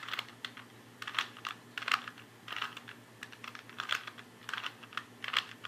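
Plastic Rubik's Cube being twisted face after face in quick succession, with irregular clicking and clacking as the layers snap round while a move sequence fixes a last-layer corner.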